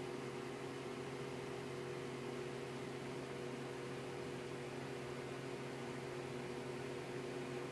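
Steady low electrical hum over a faint hiss, with no ringing or call audio heard.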